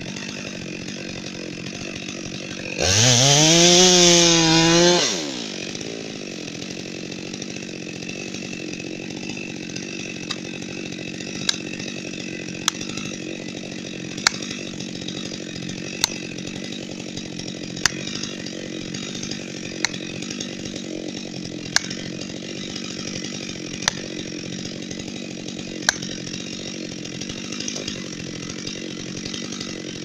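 Chainsaw idling with its bar left in the felling cut, briefly revved to a loud high pitch about three seconds in. From about ten seconds on, the back of an axe strikes plastic felling wedges in the cut about ten times, one sharp knock every two seconds or so, over the idling saw.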